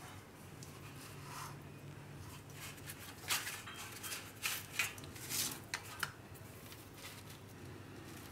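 Soft rustles and light clinks of flatbreads being lifted off a steel plate and laid onto a ceramic plate, a run of short clatters in the middle.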